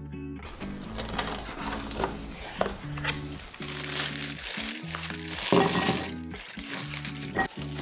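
A plastic bag crinkles as it is handled. About five and a half seconds in there is a louder rustle as scallops slide out of the bag into a ceramic bowl. Background music with a steady bass line plays throughout.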